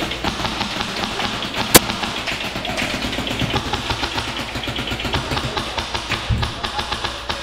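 Airsoft rifles firing rapid full-auto bursts: a dense, fast, continuous ticking. Two loud sharp cracks cut through it, one about two seconds in and one right at the end.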